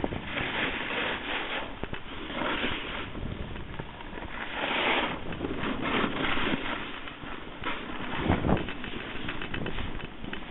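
Snowboard sliding and scraping over hard-packed snow, swelling and fading in surges, with wind rushing on the microphone.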